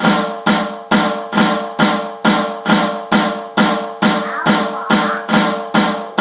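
Snare drum played with the Swiss Army triplet rudiment: repeating right-right-left triplets with a flam on the first note, at a slow, even practice tempo. The accented strokes come a little more than twice a second, each ringing out before the next.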